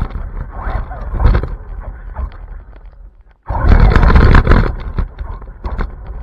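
Rushing wind and rolling noise with repeated knocks and bumps on an RC car's onboard camera as it drives fast over pavement and grass. The sound drops out briefly about three and a half seconds in, then returns at its loudest.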